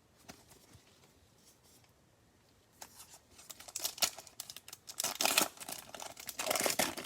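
Plastic trading-card pack wrapper being torn open and crinkled, starting about three seconds in and getting louder toward the end.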